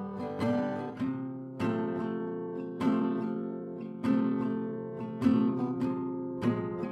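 Background music: an acoustic guitar strumming chords, a fresh strum about once a second.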